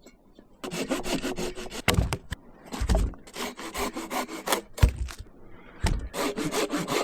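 A hand saw cutting through a log for firewood: quick rasping back-and-forth strokes that start about half a second in, with two short pauses and a few low knocks between runs.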